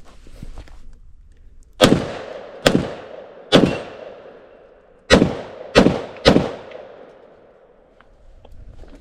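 Six pistol shots in two strings of three, each ringing out with a long echo.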